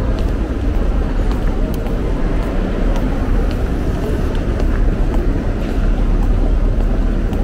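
Steady low vehicle rumble with faint clicks scattered through it.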